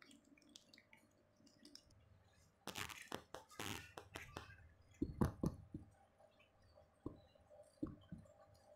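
Mother cat chewing and eating the afterbirth just after delivering a kitten. The chewing comes in bouts of short clicks, mostly from about three to six seconds in, with a couple of single ones near the end.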